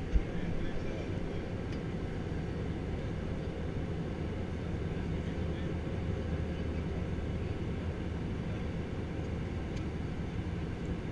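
Steady low drone of an Airbus A320 in flight, its engine and airflow noise heard from inside the cabin at a window seat, with a faint steady tone running through it. A single short thump comes just after the start.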